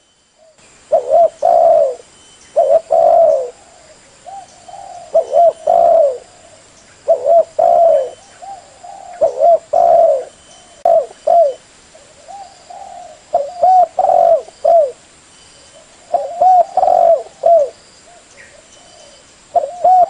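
Caged spotted doves (derkuku) cooing: short phrases of low, arched coos repeated every second or two, several birds calling, some close and some fainter.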